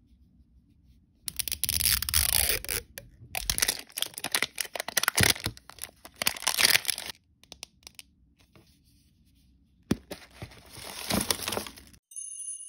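Plastic wrapper being torn and peeled off an L.O.L. Surprise toy ball, heard close up as several stretches of crackling and crinkling with a short pause between them. A twinkling chime tune starts near the end.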